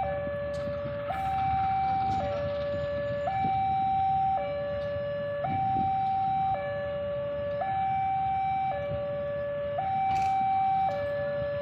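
Two-tone hi-lo siren, switching steadily between a lower and a higher tone, each held about a second, over a low rumble.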